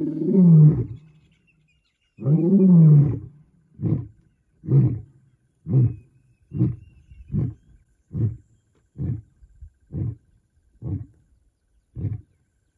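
Male lion roaring: two long, drawn-out roars, then a run of short grunting roars about one a second that grow steadily fainter.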